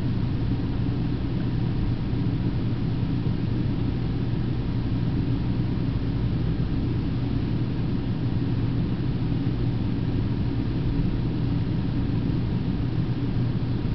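Steady low mechanical hum with an even rumble and faint hiss, unchanging throughout, like a fan or machinery running.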